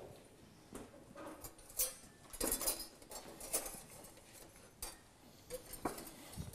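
Scattered clinks and knocks of a steel cooking pot being handled and lifted off the grate of a gas hob.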